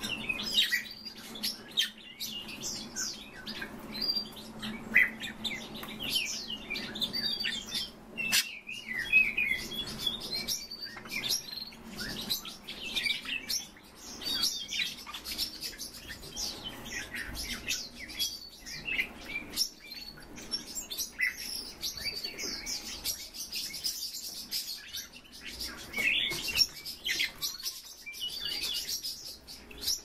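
Mixed cage birds (budgerigars, crossbills and a white-winged grosbeak) chirping and twittering in a continuous stream of short high calls, with a few scattered clicks.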